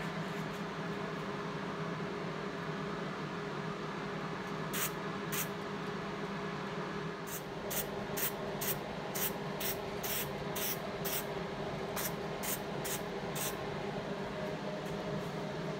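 Color being sprayed onto a putty-filled repair on a wooden rocking chair, in short hissing bursts. There are two bursts near five seconds in, then about a dozen quick ones, roughly two a second, from about seven to thirteen seconds in, over a steady low hum.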